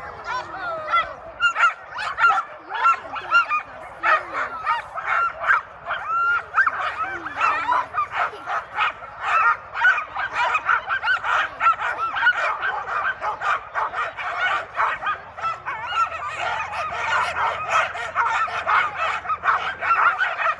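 Sled dogs barking and yelping in a loud, dense, unbroken chorus, the excited noise of a team held at the start and eager to run.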